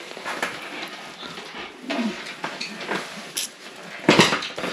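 Nylon backpack fabric and a plastic drinking tube rustling as they are handled, with a louder short clatter about four seconds in.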